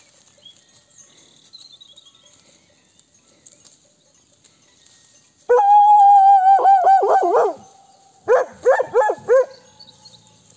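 Kangal guard dog howling: one long held howl about halfway through that breaks into wavering yelps, then after a short pause a quick run of four or five yelping barks. It is an uneasy alarm call, which the shepherd puts down to a wolf prowling near the flock.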